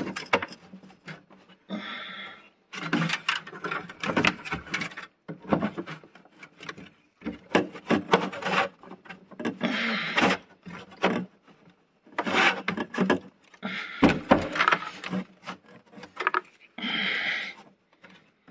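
Hands handling flexible corrugated heater ducts: repeated rubbing, scraping and knocking as the hoses are pulled about and refitted, with a brief scratchy rasp about two seconds in and another near the end.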